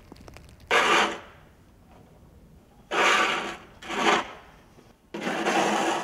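Snow shovel scraping along a snowy walkway, four rasping scrapes, the last one the longest.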